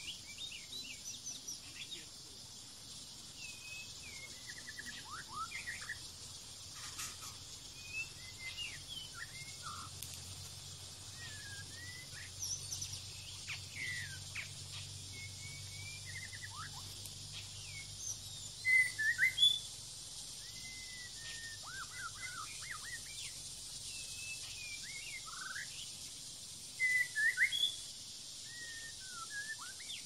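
White-rumped shama singing and calling: a string of short, varied whistled phrases and gliding notes, loudest in two bursts around the middle and near the end, over a steady high hiss.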